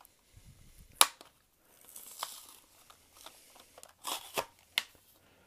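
Hot Wheels plastic blister pack being ripped open from its cardboard card, with crackling plastic and card. A sharp snap about a second in is the loudest sound, and there are more snaps near the end.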